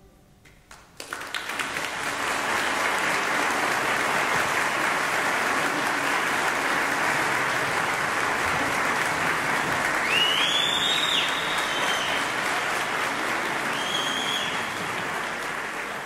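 Concert audience breaking into applause about a second after the choir's final chord dies away. The clapping is steady, with a few high whistles about ten seconds in, and fades out near the end.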